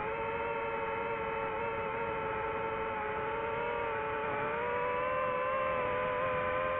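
DJI FPV drone's motors and propellers whining steadily in flight, a stack of pitched tones that rises a little about halfway through as the drone banks and speeds up.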